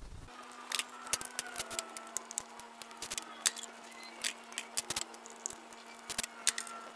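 Hand ratchet clicking and metal tools clinking in irregular sharp ticks as connecting-rod cap bolts are undone and rod caps lifted off a bare engine block, over a steady low hum.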